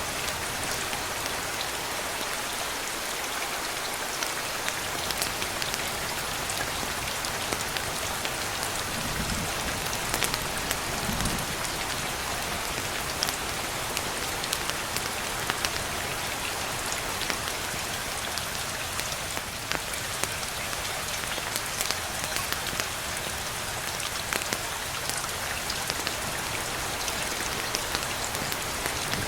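Steady rain falling, an even hiss with many scattered sharp ticks of drops. Two brief faint low rumbles come about a third of the way in.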